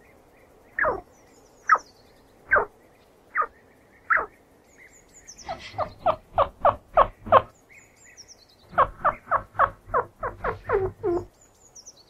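Chinchilla squeaking: short squeaks that drop in pitch, at first singly about once a second, then in two quick runs of about five a second, starting about five and a half and about nine seconds in. Faint higher chirps sound in the background.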